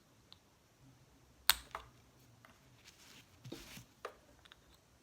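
Plastic nail gel applicator being handled: a sharp click about a second and a half in, then soft scraping and a few light ticks. The applicator has no opening and will not dispense gel.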